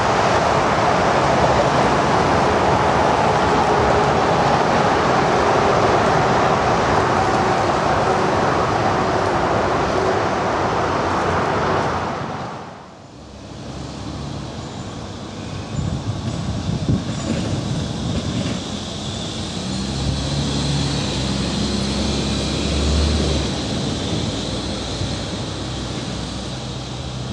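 Tram running on its track: loud rolling noise with a steady tone in it, cut off suddenly about twelve seconds in. After that, quieter street traffic, with a low engine rumble from a passing vehicle near the end.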